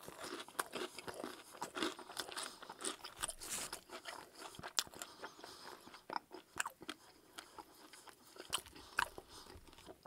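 Chewing mouthfuls of KFC Extra Crispy fried chicken, with irregular sharp crunches and crackles of the crisp breading.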